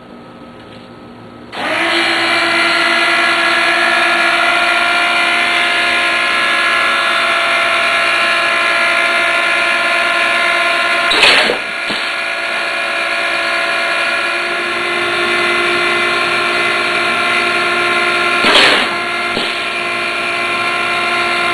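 Electric water pumps on a Vincent motorcycle streamliner switch on about a second and a half in and run with a steady whine made of several even tones. The pumps are running because the separate battery circuit that feeds the parachute solenoids is switched on. Two short louder rushes of noise come about eleven and eighteen seconds in.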